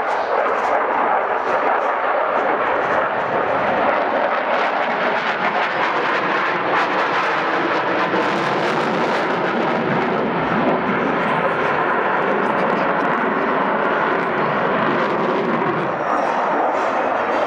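Twin jet engines of a MiG-29 Fulcrum fighter roaring steadily overhead during a display flight. The roar grows deeper and fuller around the middle.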